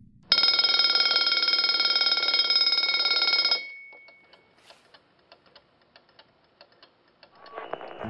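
Mechanical bell ringing rapidly and loudly for about three seconds, then cut off, its tone dying away; faint clicks follow.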